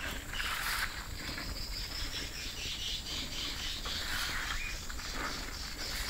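Swiftlet calls: a rapid series of high, repeated chirping twitters, the lure sound used to call swiftlets to a swiftlet house.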